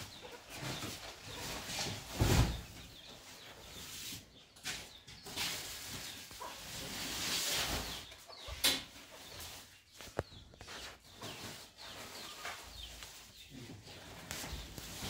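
Large woven plastic sacks of flour being dragged, lifted and set down on a tiled floor: irregular rustling and scraping of the sack fabric, with a heavy thump a couple of seconds in and a few sharp knocks.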